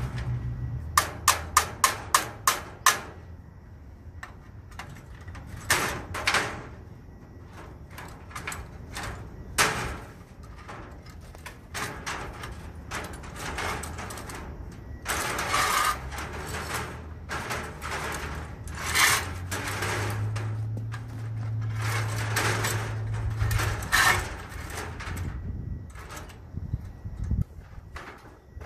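Steel Core 4-ton come-along cable winch being ratcheted by hand: a quick run of about eight sharp clicks about a second in, then scattered clanks, rattles and scrapes as the cable drags a broken-down zero-turn mower onto a trailer.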